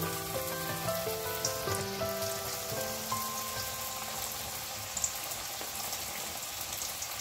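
Mini potato samosas deep-frying in hot oil in a steel wok: a steady fast crackle and bubbling of oil around a freshly added batch that is still pale. Soft background music plays over it, fading back after the first few seconds.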